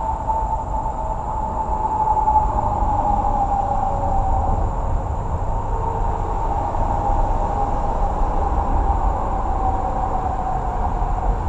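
Distant vehicle noise: a steady low rumble with a faint drawn-out whine that slowly falls in pitch.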